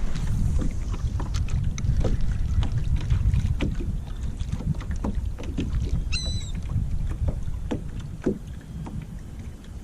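Wind rumbling on the microphone of a kayak on the water, with scattered small clicks and knocks. A short high-pitched bird call comes about six seconds in.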